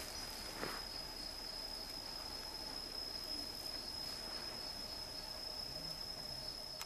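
Insects singing in woodland undergrowth: a steady high-pitched trill with a faint regular pulse. One soft footstep on leaf litter about half a second in.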